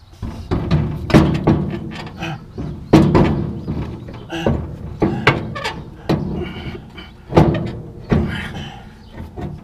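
Irregular metal knocks and clanks, about one or two a second, as a New Holland 474 haybine's wobble box housing is shifted and bumped against the mower frame while it is worked into place.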